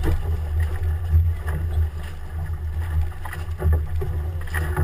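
Water splashing and sloshing in and around a swamped voyageur canoe as it is bailed out, in several sudden splashes, over a steady low rumble of wind on the microphone.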